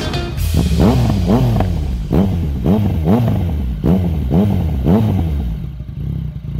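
Motorcycle engine revved in about eight quick throttle blips, each one a short rise and fall in pitch. Near the end it settles to a steady idle.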